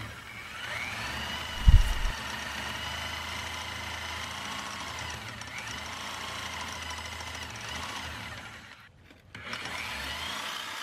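Reciprocating saw (Sawzall) with a sharp metal blade cutting through the old sway bar link's lower mounting hardware; its motor whine dips and rises as the blade loads up. A heavy knock about two seconds in, and the saw stops for a moment near the end, then starts again.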